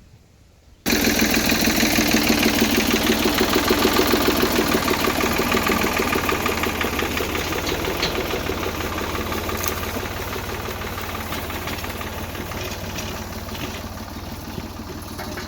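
Engine of the vehicle towing the roller crimper, running steadily with a pulsing beat; it cuts in abruptly about a second in and slowly grows quieter.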